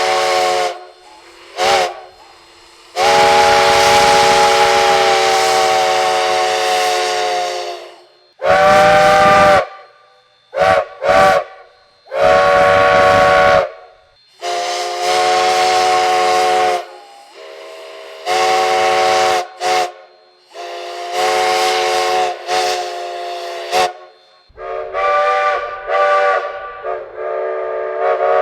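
Steam locomotive chime whistle blowing, several notes sounding together over a hiss of steam: one long blast of about four seconds, then a string of shorter blasts and quick toots.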